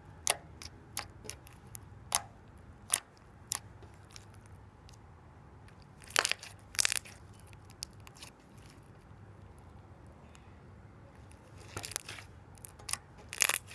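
Slime being squished and played with by hand, giving irregular sharp clicks and pops, with louder clusters about six seconds in and again near the end.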